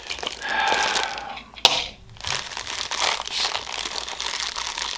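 Plastic wrapping crinkling and rustling as a Funko Soda figure is handled, with one sharp click about one and a half seconds in.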